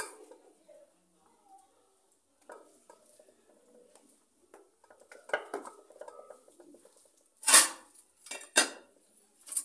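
Cooked rice being scooped out of an aluminium pot onto a plastic plate with light scraping and clinking, then two loud metallic clanks about a second apart as the aluminium lid is handled and set on the pot.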